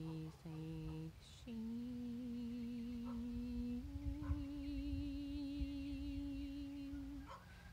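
A woman humming long held notes with a slight waver, stepping up in pitch: two short notes, a brief pause, then a long note and a longer, higher one that stops near the end.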